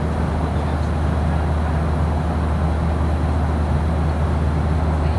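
Steady cabin noise of a Boeing 737-800 in cruise: the constant drone of its CFM56 engines and the airflow, with a strong low hum underneath.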